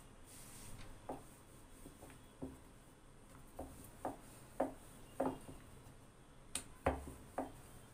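Wooden rolling pin rolling dough out thin on a wooden board, with a string of light, irregular wood-on-wood knocks as the pin is pressed and rolled back and forth.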